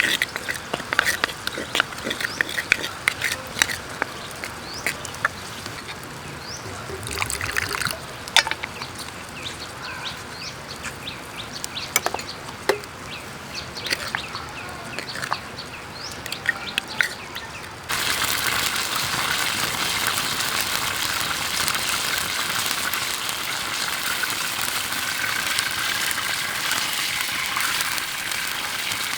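Creek water running, with scattered sharp clicks and short bird chirps over it. About two-thirds of the way in, it switches suddenly to a louder, steady rush of water.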